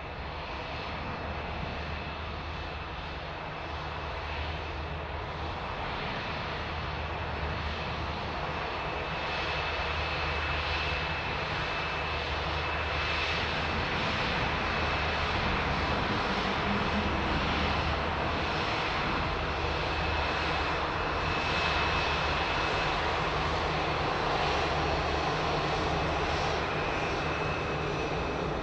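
Boeing 787-9 Dreamliner's jet engines running at low power as it taxis. A steady rush carries a thin, steady high whine, and the sound grows slowly louder.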